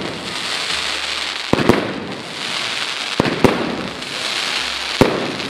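Aerial fireworks going off: about five sharp bangs of bursting shells, some in quick pairs, over a steady crackling.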